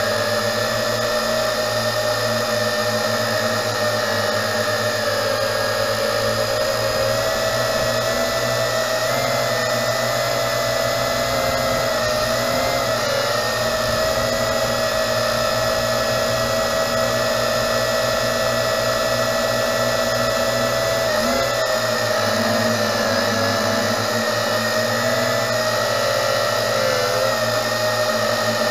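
Tarantula X6 quadcopter's motors and propellers whining steadily in flight, heard close from its onboard camera, the pitch wobbling briefly now and then.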